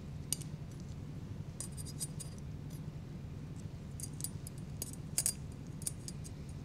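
Steel surgical instruments (needle holder, forceps and clips) clicking and clinking against each other in scattered clusters while a suture is placed, over a low steady hum.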